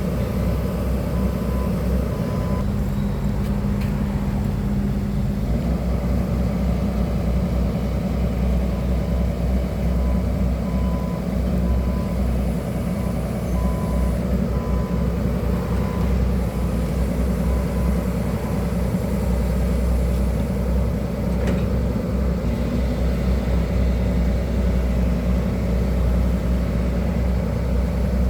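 Hydraulic excavator's diesel engine running steadily. Its travel/motion alarm beeps in short runs now and then.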